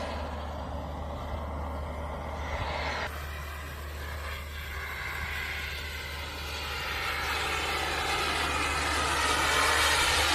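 Kingtech turbine engine of a large RC model jet in flight: a steady jet rush and whine that changes abruptly about three seconds in, then grows louder toward the end as the jet comes closer.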